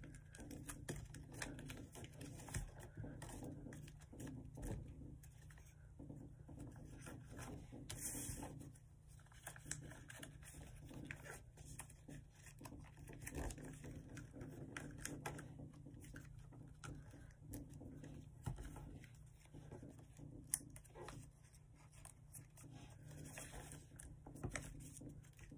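Faint, irregular rustling and creasing of a sheet of notebook paper being folded by hand, with now and then a sharper tap or crinkle.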